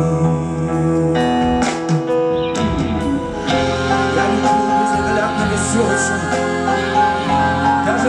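Live band playing an instrumental passage of a slow ballad, with electric guitar and piano, the full band coming in together right at the start.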